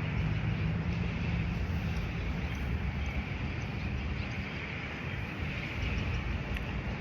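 Steady road traffic noise: a continuous low rumble of passing vehicles with a hiss over it.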